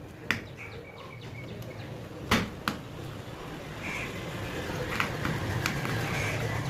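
Several sharp clicks and taps, with faint short tones, over a low hum that grows louder about four seconds in.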